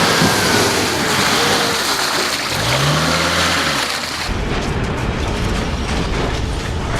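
Off-road vehicle engine running under a steady wash of wind and road noise, its pitch rising and falling once. About four seconds in the sound changes abruptly to a heavier low rumble.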